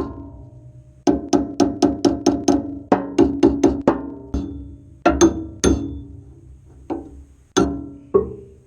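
Repeated blows on metal, each with a short ringing tone, like a hammer striking steel on the bulldozer: a quick run of about four strikes a second, then slower, spaced single blows near the end.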